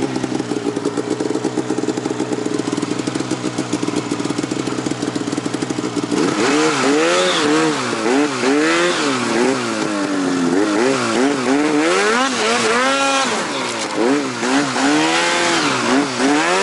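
Arctic Cat Alpha One Hardcore 165 snowmobile's two-stroke engine running at a steady pitch, then from about six seconds in revving up and falling back over and over as the throttle is blipped on and off. The rider himself hears this stop-start throttle as hesitant riding.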